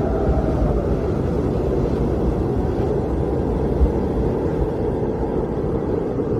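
Blizzard wind blowing steadily with a deep rumble, and a faint whistle sliding down in pitch near the start.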